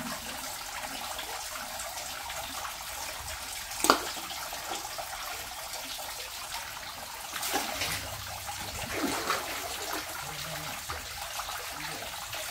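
Steady rush of running water in a large fish tank, with one sharp splash about four seconds in and softer splashes a little after seven and nine seconds as big fish strike at food at the surface.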